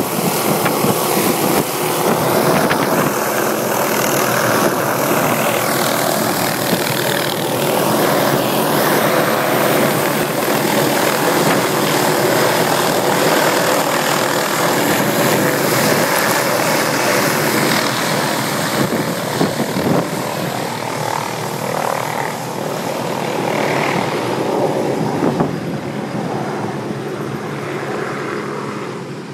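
Hughes/MD 369E helicopter's Allison 250 turboshaft and rotor running at flight power as it lifts off and flies away. The sound is steady, then fades over the last few seconds as the helicopter moves off.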